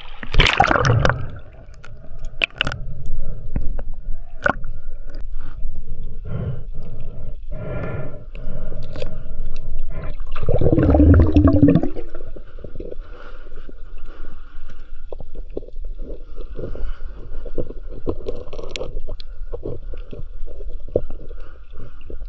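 A brief splash-like rush, then muffled underwater gurgling and bubbling during a breath-hold dive without fins, with scattered knocks and clicks. A louder muffled surge comes about ten to twelve seconds in.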